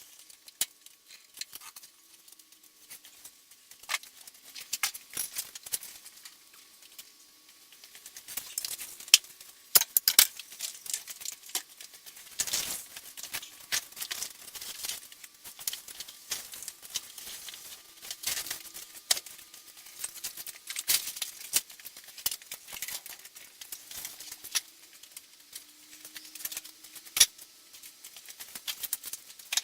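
Irregular clinks, clicks and clatter of small metal tools and parts being handled and set down during workshop setup for a tyre change.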